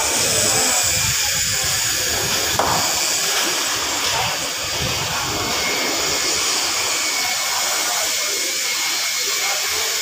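Concrete pump running steadily: a constant hissing machine drone with an uneven low rumble underneath.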